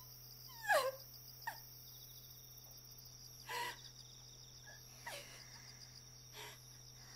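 A woman crying: a wavering, falling wail about a second in, then scattered sobs and catching breaths, over a steady background of chirping crickets.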